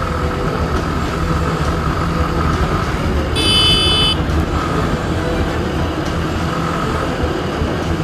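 Motorcycle running at speed, with a steady engine drone and road and wind noise. About three and a half seconds in, a horn sounds one short, high-pitched toot lasting under a second.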